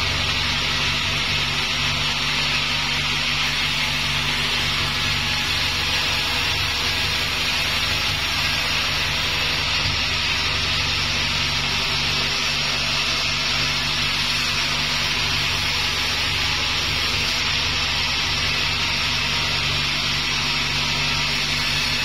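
Sawmill saw ripping a wadang timber plank, a steady cutting hiss over the machine's constant low hum.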